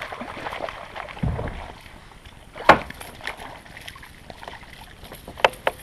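Hooked perch splashing at the surface beside a plastic fishing kayak as it is brought in by hand, with a low thump and several sharp knocks and clicks of gear against the hull, the loudest about two-thirds of a second before the midpoint and two more close together near the end.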